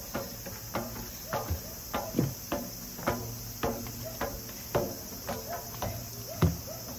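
Footsteps in slip-on sandals climbing metal stairs, about two sharp steps a second, over a steady chorus of insects chirring.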